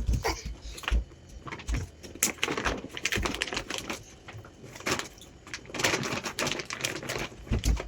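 Irregular clicks and crackles of mattress packaging being handled, coming in quick uneven clusters.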